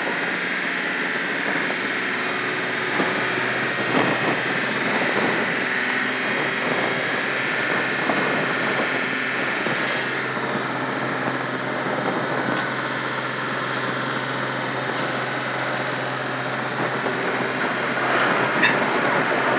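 Steady drone of a ship's engine with a constant rushing wash, a little louder near the end.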